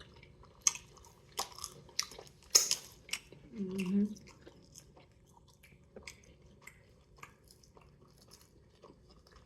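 Close-miked chewing and biting of pizza: wet mouth clicks and short crusty snaps, busiest in the first three seconds and fainter after. A brief voiced sound comes about three and a half seconds in.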